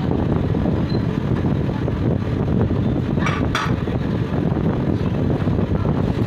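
Steady low roar of a busy commercial kitchen around a large dosa griddle, with two short hissing sounds about three seconds in.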